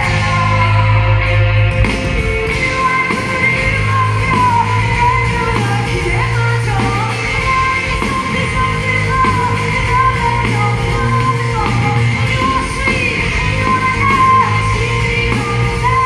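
Live music: a woman singing full-voiced, at times close to a shout, over a strummed acoustic guitar in a concert hall.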